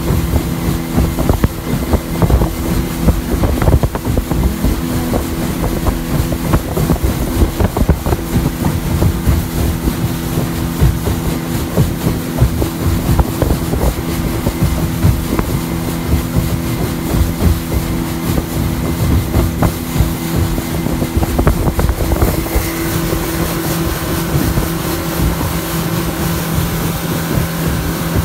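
Speedboat engine running steadily at speed, with wind buffeting the microphone and irregular thumps as the hull meets the chop. About three-quarters of the way through, the buffeting eases and the engine's steady drone stands out more.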